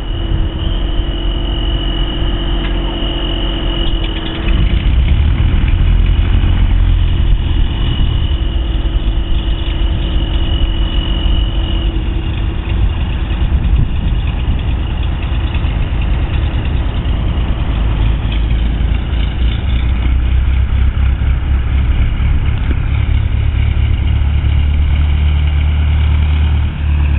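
Cessna 172 Skyhawk's piston engine running at idle after startup, a steady rumble that steps up in level about four seconds in.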